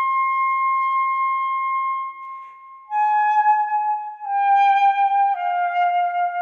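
Solo alto saxophone playing long held notes high in its range: one note held about two seconds, a brief break, then three sustained notes each a step lower.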